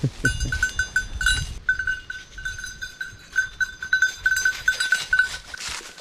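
Small metal bell on a Brittany bird dog's collar, jingling in quick, uneven strikes as the dog moves. It stops shortly before the end, when footsteps rustle through dry leaves.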